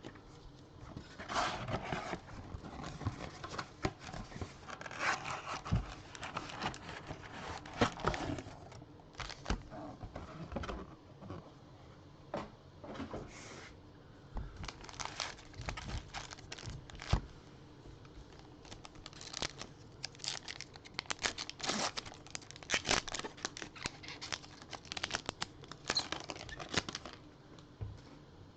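Foil trading-card pack wrappers being torn open and crinkled by hand, in irregular bursts of tearing and crackling with sharp clicks between.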